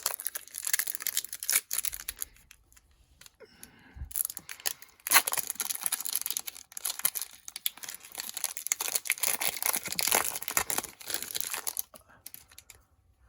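Foil Pokémon booster pack torn open and its wrapper crinkled, with the cards clicking and rustling as they are handled. There are two long stretches of dense crackling with a quieter pause a couple of seconds in.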